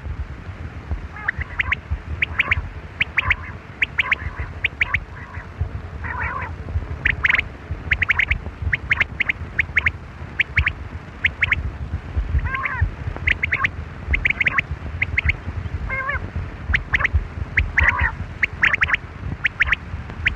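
Quail calling: many short, sharp notes repeated irregularly, with a few lower warbling calls mixed in, over a steady low rumble.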